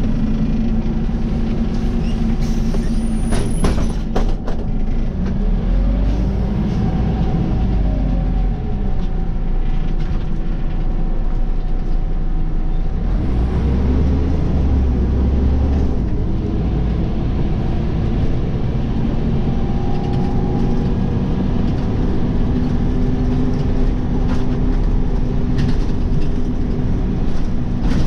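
Scania OmniCity city bus heard from inside the passenger cabin: the engine runs steadily with a deep hum, its note rising and then falling twice as the bus pulls away and eases off, and a few knocks and rattles from the body near the start.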